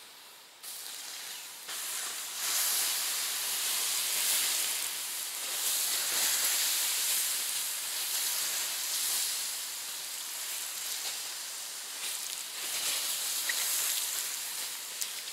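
Water poured onto campfire embers, hissing and sizzling as it turns to steam. It starts about half a second in, grows louder after about two seconds and goes on unevenly, easing off briefly near the end: the fire being put out.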